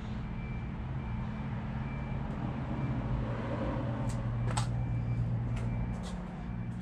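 Steady low electrical or mechanical hum filling the workshop, with a faint high beep repeating at an even pace and a few sharp clicks about four to six seconds in.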